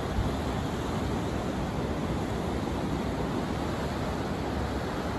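Ocean surf breaking and washing up the beach, a steady rush with no distinct crashes, with wind buffeting the microphone underneath.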